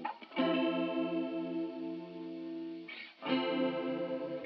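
Outro music: electric guitar chords with chorus and distortion effects, the chord changing twice.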